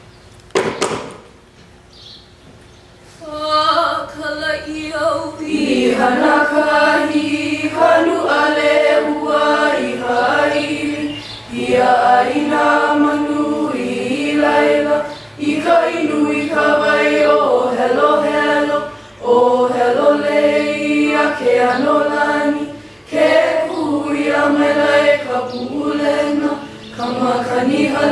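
A group of voices singing a Hawaiian mele a cappella, in phrases of long held notes with short breaths between them. A single knock sounds about a second in.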